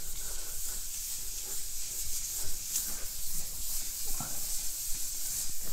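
Hand sanding a dried mineral plaster (cement-look) wall finish with 600-grit sandpaper: a steady hissing rub of the paper across the surface.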